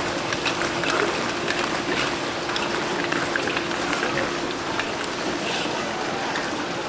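Sticky sweet-and-spicy sauce sizzling and bubbling in a large wok while fried chicken pieces are tossed through it. Wooden spatulas click and scrape against the wok, over a steady hum.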